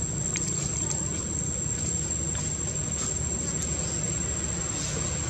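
A steady, high-pitched insect drone holds one unchanging pitch over a low, continuous rumble, with a few faint clicks.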